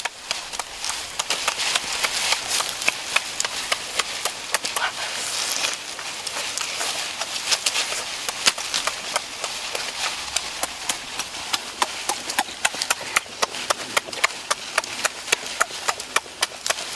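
Close-up eating sounds: cooked lobster shell cracking and being chewed, with mouth-smacking, a crisp click several times a second.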